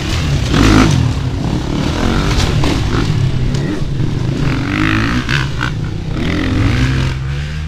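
Enduro motorcycle engines revving hard, the revs rising and falling again and again as the bikes accelerate across the empty pool and up its steps.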